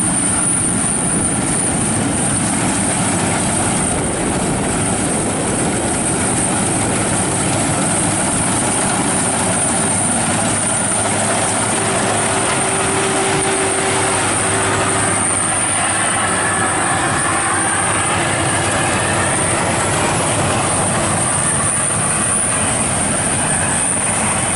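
Rice combine harvesters running steadily under load while cutting rice: a loud, continuous mechanical din from the engine and the cutting machinery, with a faint steady high whine above it.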